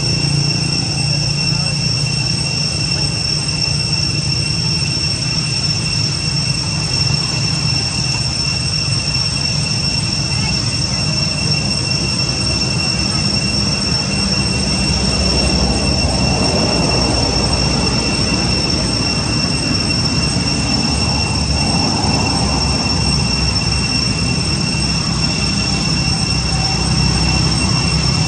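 Loud, steady high-pitched drone of forest insects, with a low rumble underneath.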